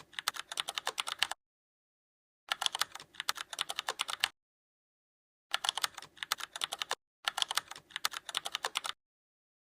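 Computer keyboard typing in four bursts of rapid key clicks, separated by dead silence: a typing sound effect laid over the video's opening.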